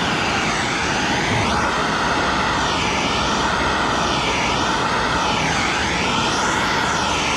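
Hose-fed plumbing torch burning with a steady rushing hiss while it heats a brass fitting for soldering. Its tone sweeps up and down over and over as the flame is moved up and down along the fitting to heat it evenly.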